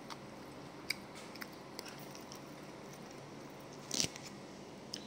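Quiet chewing and small mouth clicks as someone eats soft fried rice-flour cake with egg. About four seconds in, a plastic fork knocks and scrapes against the plastic food container.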